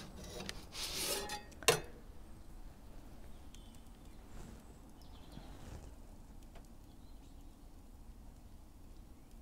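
Metal pizza peel scraping across the oven's baking stone as it is drawn out, ending in one sharp clank about two seconds in. After that only faint outdoor background with an occasional small tick.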